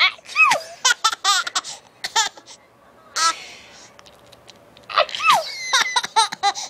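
High-pitched laughter in repeated bursts and squeals, with a brief lull in the middle. There is a falling squeal about half a second in, and another just past five seconds.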